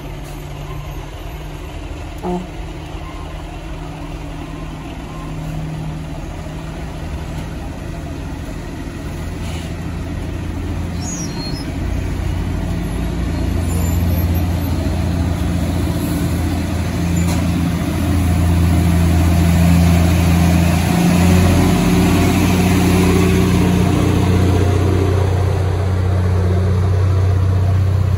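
Diesel engines of heavy trucks and other vehicles running in slow, queued traffic, a steady low drone that grows louder as vehicles move up close past the microphone.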